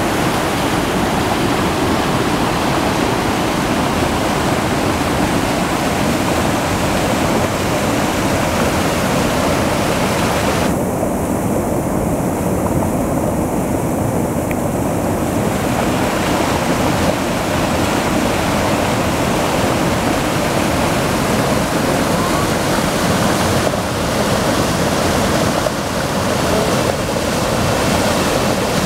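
Mountain river rushing and splashing over boulders: a steady water roar. Around the middle its hiss turns duller for a few seconds.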